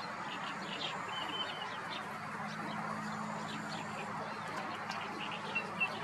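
Several wild birds chirping and calling in a busy background chorus of short, quick notes, over a steady low hum.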